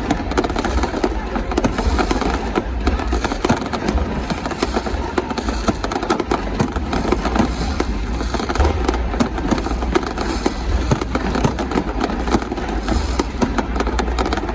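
Fireworks going off continuously: a dense, irregular crackle of pops and bangs over a steady low rumble, with voices underneath.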